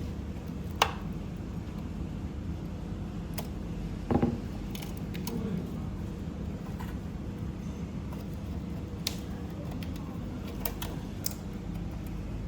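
Scattered light clicks and taps of small parts and tools being handled, with one louder knock about four seconds in, over a steady low hum.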